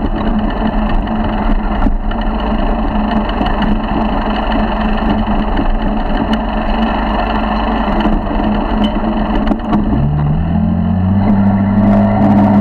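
A 50cc four-stroke motorized bicycle engine running while the bike is ridden over rough grass, with a few knocks from the bumpy ground. About ten seconds in the engine speeds up, its pitch rising and then holding higher.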